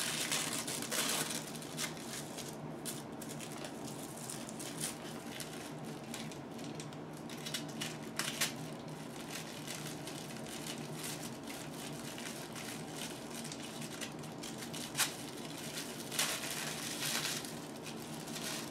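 Light tissue packing paper crinkling and rustling in irregular bursts, with a few sharp crackles, as it is pulled off a boxed replica hammer. A steady low hum runs underneath.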